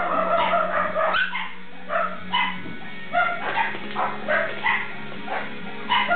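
Four-week-old Shetland sheepdog puppies yipping: a run of short, high-pitched yips, about two a second, the first one drawn out longer.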